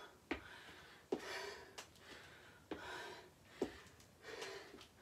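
A woman breathing hard through alternating reverse lunges, with a short thud from her trainers on the wooden floor roughly every second, about six in all.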